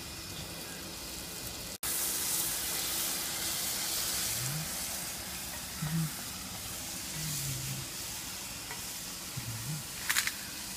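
Chopped tomato frying in a pan over a small gas-cylinder stove, a steady sizzle with a wooden spoon stirring through it. The sound cuts out for an instant about two seconds in and comes back louder, and a few sharp clicks come near the end.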